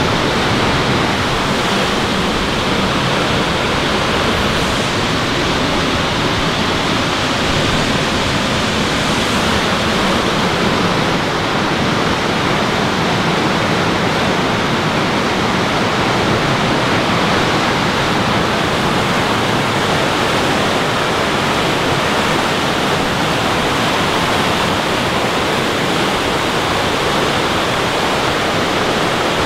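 Fast mountain river rushing close by: a loud, steady wash of water noise that does not change.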